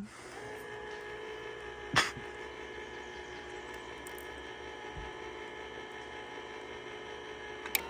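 Electric can opener running with a steady hum as it cuts around a can of baked beans. A sharp click about two seconds in, the loudest sound, and a smaller click near the end as it stops.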